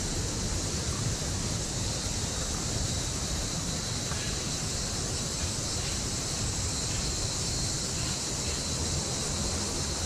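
Steady outdoor ambience: an even low rush with a steady high-pitched hiss above it.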